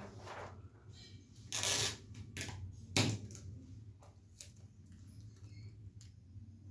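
Large sheets of pattern paper rustling and crinkling as they are rolled back and smoothed by hand, with a louder swish of paper a second and a half in and a sharp tap about three seconds in, then small scattered rustles.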